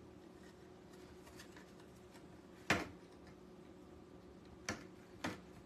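Three sharp knocks as a small wooden sign and craft wire are handled against a countertop while the wire is fed through a hole in the sign. The first, about halfway in, is the loudest; two lighter ones follow close together near the end, over a faint steady hum.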